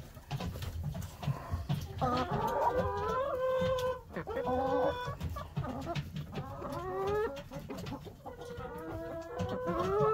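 Domestic hens clucking, giving several drawn-out calls that rise in pitch, with rustling and knocking underneath.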